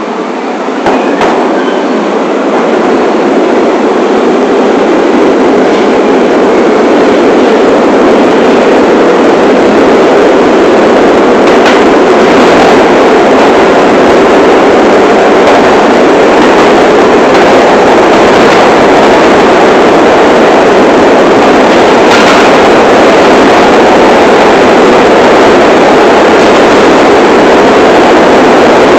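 New York City subway train running on the rails: a loud, steady wheel-and-rail noise that builds over the first few seconds as the train picks up speed, then holds, with a few faint clicks.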